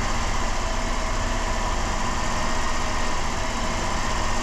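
2007 Dodge Caravan's 3.3-litre V6 running steadily at idle while it burns off the last of an intake cleaner drawn in through the brake booster vacuum line.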